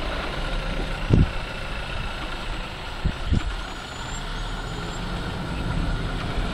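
Vehicle engine idling with a steady low rumble, with a few short low thumps about a second in and again around three seconds in.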